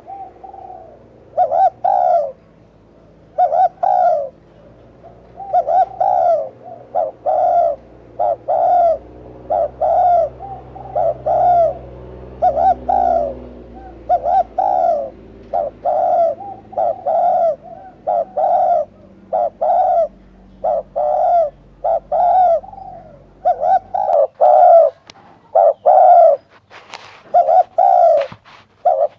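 Spotted dove cooing: short, hoarse coo notes repeated in quick phrases, over and over.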